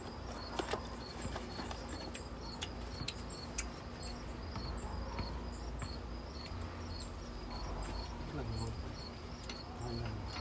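Crickets chirping in a steady, evenly repeating rhythm, with a few sharp clicks over it.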